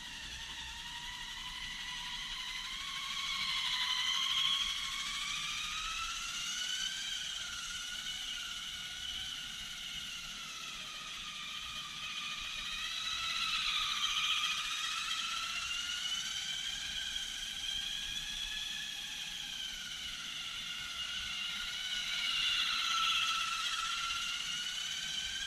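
High whine of a 1/10-scale electric RC race car's motor and drivetrain as it laps, the pitch gliding up and down with its speed through the corners. It grows louder roughly every nine to ten seconds as the car comes round close by.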